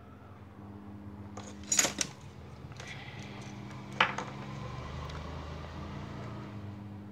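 Small metal tools clinking and tapping on a workbench during soldering work: a quick cluster of clinks about two seconds in and one sharp tap at four seconds, over a steady low electrical hum.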